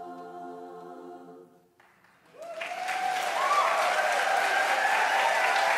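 A women's a cappella barbershop chorus holds a final sustained chord, cut off cleanly about a second and a half in: the end of a song. After a short silence, the audience breaks into loud applause and whooping cheers.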